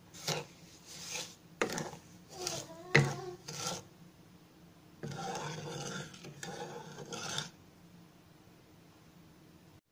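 Flat wooden spatula stirring sugar into water in a pan, its edge scraping the pan bottom in a series of short strokes, then more steadily from about five seconds in until it stops a couple of seconds later.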